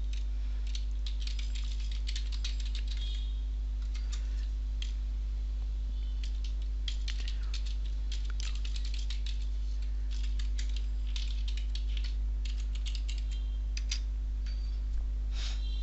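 Computer keyboard typing: runs of quick keystrokes broken by short pauses, as a login name and password are typed. A steady low hum runs underneath.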